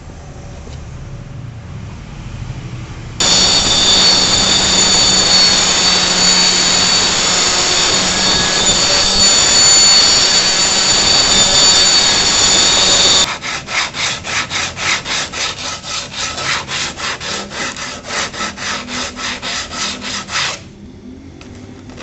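A circular saw cuts through plywood for about ten seconds, a loud steady run with a high whine, then stops abruptly. Sandpaper is then rubbed back and forth along the cut plywood edge by hand, about three to four strokes a second, ending a little before the close.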